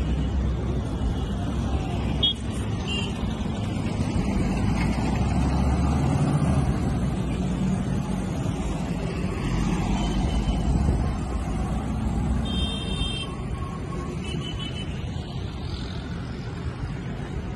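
A bus engine running as the bus drives slowly past through the lane, over steady road-traffic rumble. A few short high beeps sound about two-thirds of the way through.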